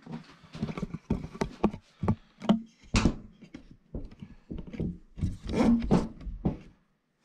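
Irregular clicks, knocks and rubbing of plastic parts being handled and fitted into a washing machine's detergent dispenser and top panel.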